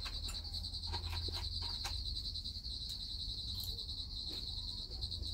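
Crickets trilling steadily in a high, rapid, even pulse over a low hum, with a few faint taps.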